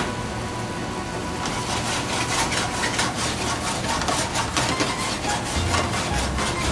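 Wooden spoon stirring rice, diced carrot and sliced courgette in a stainless steel pan: quick, irregular scraping and clacking strokes, several a second, starting about a second and a half in.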